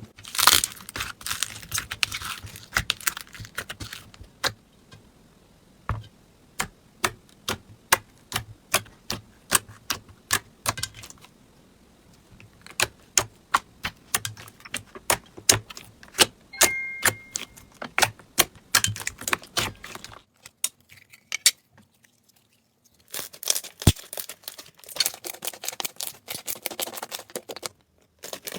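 Slime being pressed and played with, making sharp crackles and pops: dense crackling at first, then a run of separate clicks about twice a second, a short lull, and dense crackling again near the end.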